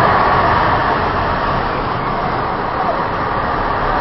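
Loud, steady rush of rough sea water churning and breaking around a small fishing boat as it is swamped by waves.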